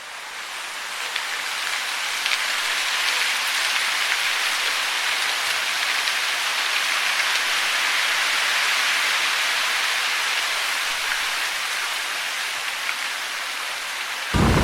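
Steady hiss of falling water, fading in over the first few seconds. Near the end it cuts suddenly to a louder, deeper rushing.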